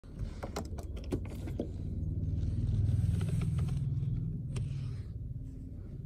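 A motor vehicle's engine passing close by: a low hum that grows to its loudest about three seconds in and then fades. Several light metallic clinks and knocks sound in the first second and a half.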